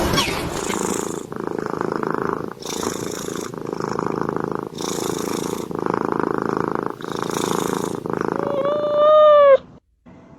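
A cat purring close up, the purr swelling and fading with each breath in and out, about once a second. Near the end it gives one long meow.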